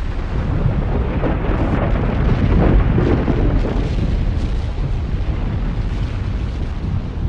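Deep, continuous rumble of a nuclear explosion, swelling to its loudest about two and a half seconds in and then easing slightly while it keeps rolling on.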